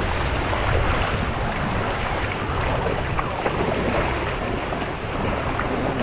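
Wind buffeting the microphone over the steady wash of shallow sea water at the shore.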